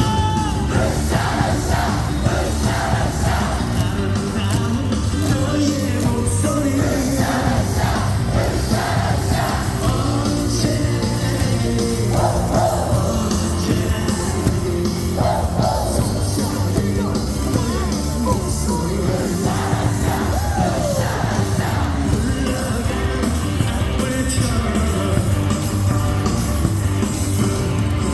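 A stadium crowd of thousands singing a Korean baseball cheer song in unison over loud amplified music, with yells mixed in.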